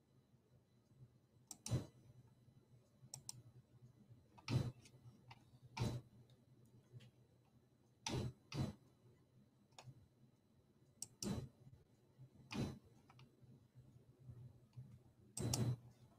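Computer mouse clicking: single sharp clicks every one to three seconds at an uneven pace, two of them close together about eight seconds in, over a faint steady low hum.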